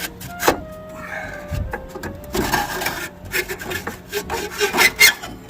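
Inducer fan motor assembly of a Carrier gas furnace being worked loose and pulled out of its housing: scraping and rubbing of metal parts with irregular knocks, and a few sharp clacks about half a second in and again near the end.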